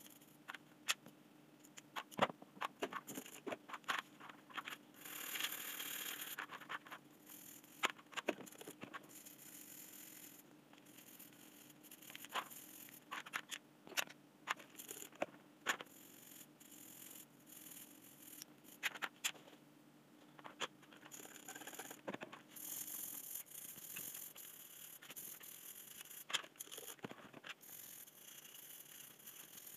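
A small stiff brush scrubbing the plastic and metal parts of a disassembled cordless drill over a wet plastic tray, in irregular scratchy strokes. Sharp clicks and taps come as the parts are handled and set down on the tray.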